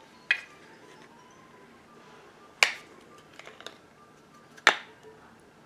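Three sharp plastic clicks, about two seconds apart, with a few softer ticks between the second and third, as a plastic body butter tube is handled and its cap worked.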